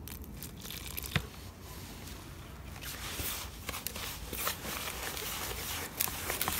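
Water poured onto fine-ground carp groundbait in a plastic bowl, with a sharp knock about a second in. Then a hand mixes and kneads the damp crumb: a grainy rustling and crunching, full of small crackles, that grows denser about three seconds in.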